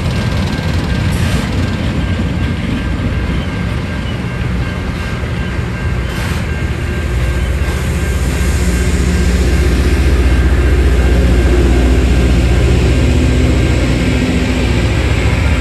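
Rail grinding train passing while grinding the rails: a steady, harsh grinding hiss over the low rumble of its engines. The sound grows louder from about seven seconds in as more of the grinding cars come near.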